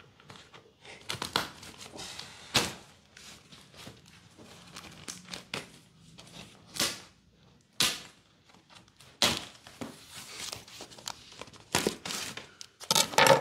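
Damp cardboard shipping box being opened by hand: irregular rips, crinkles and knocks as tape and flaps are torn and pulled back, with a loud rip near the end.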